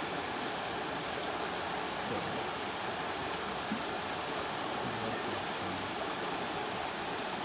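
Steady rushing of a shallow river running over rocks, with one brief click about halfway through.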